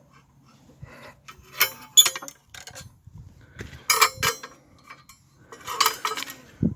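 Short bursts of metal clinking and rattling, three times, about one and a half, four and six seconds in: the clamp on a homemade steel scribing compass being loosened and adjusted.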